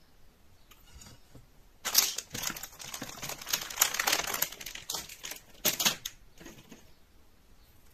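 A rapid clatter of small clicks and knocks, like small objects being handled, starting about two seconds in and lasting about four seconds, with a few sharper clacks among it.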